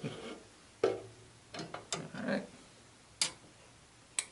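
About six light metal clicks and clinks at irregular intervals, as a Dietz Millennium 2000 cooker lantern is moved by its wire bail and a small metal pot and lid are handled.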